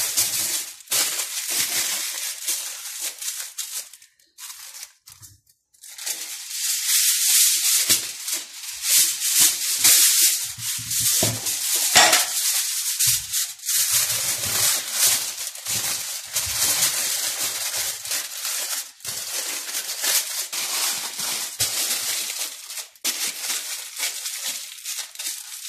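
Aluminium foil crinkling and crackling as it is scrunched and wrapped by hand around sweet potatoes, irregular, with a short pause about four seconds in.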